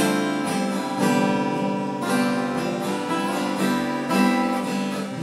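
Two acoustic guitars strumming chords together, with a strong strum about once a second and no singing.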